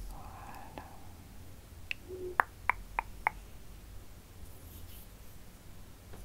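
A quick run of five sharp little clicks, a bit over a second long, about two seconds in, over a faint steady low hum.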